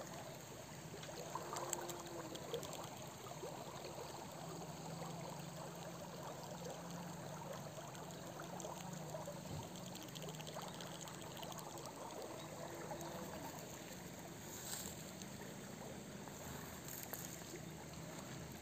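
Shallow river with a fairly strong current, rippling and trickling steadily over stones.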